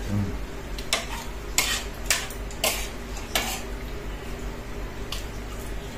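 Metal fork and spoon clinking and scraping against a ceramic plate as food is scooped up, with about six sharp clicks at uneven intervals.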